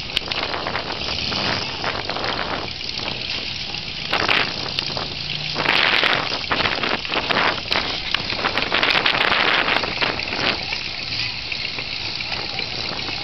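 Wind buffeting the camera's microphone, heard as harsh crackling static that swells and eases in gusts, loudest about six and nine seconds in.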